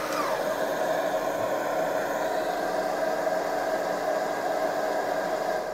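Shop vacuum running steadily, switched on automatically by the Bosch 12-inch sliding miter saw's auto-start switch. The saw motor's whine falls in pitch as the blade coasts down in the first half-second. The vac shuts off automatically at the very end and begins to wind down.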